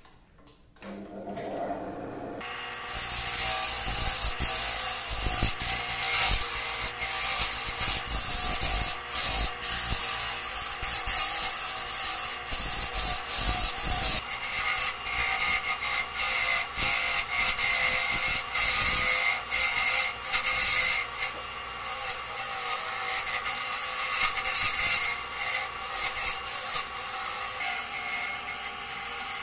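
Wood lathe starting up about a second in. From about two and a half seconds, a hand-held turning tool cuts a spinning segmented bowl blank of glued wood rings (Kruing and Sungkai), making a rough, continuous scraping of wood with many sharp ticks.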